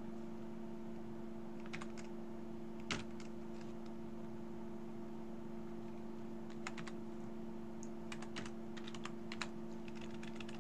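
Computer keyboard keys clicking in short, irregular runs of typing, with the loudest keystroke about three seconds in. A steady low hum sits underneath throughout.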